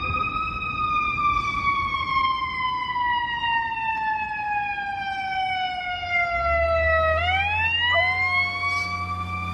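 An emergency-vehicle siren wails, gliding slowly down in pitch for about seven seconds and then swinging back up. About eight seconds in, a dog joins with a steady, lower howl alongside the siren. A low rumble comes in from about six seconds in.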